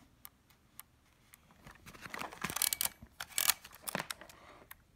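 Topcon IC-1 Auto SLR camera being handled and set: scattered small mechanical clicks and rattles from the body and its controls, busier from about two seconds in.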